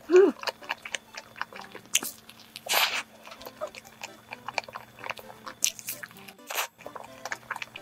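Close-up eating sounds of a soft fresh-cream-filled bun being bitten and chewed, with many small wet mouth clicks and smacks. A short falling hum comes right at the start, and two longer breathy bursts come near the middle and later on.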